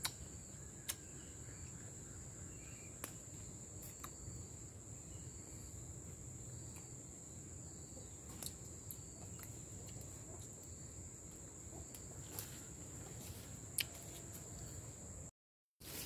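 Insects trilling steadily on one high pitch, with a few sharp clicks scattered through; the sound breaks off for about half a second near the end.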